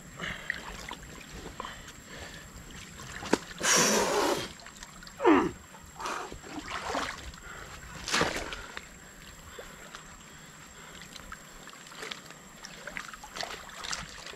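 Creek water splashing and sloshing as a waterlogged log and dam debris are heaved about by hand, with a loud splash about four seconds in and a few shorter sharp splashes and knocks after it.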